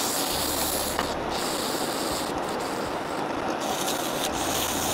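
Sandpaper held against a wooden mallet blank spinning on a benchtop wood lathe: a steady rasping hiss of sanding, thinning briefly a few times, with a low hum from the lathe coming and going underneath.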